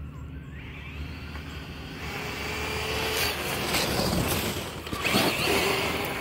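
Radio-controlled Traxxas TRX-4 crawler fitted with a brushless motor, driven fast past at close range: the motor's whine and the tyres on gravel build up, are loudest as it goes by about four to five seconds in, then fade as it moves away.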